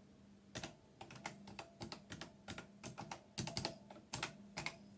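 Keys being typed on a computer keyboard: a quick, uneven run of key presses, as a command is entered, over a faint steady hum.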